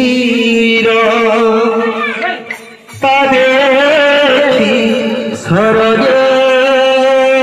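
Male kirtan singer chanting a devotional song, holding long steady notes. The phrase fades out about two and a half seconds in, and a new one starts about a second later.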